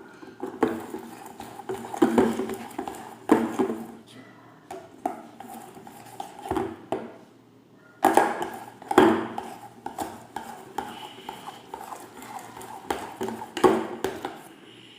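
Spoon stirring slime in a bowl, knocking and scraping against the container at irregular intervals, several sharper knocks among them.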